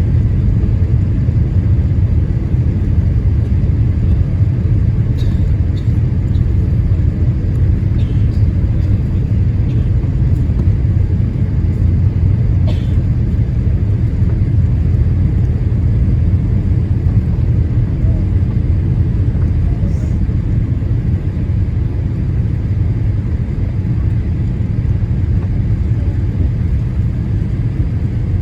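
Steady low rumble of airflow and engines heard inside the cabin of a Boeing 787-8 Dreamliner on its landing approach, with a few faint clicks.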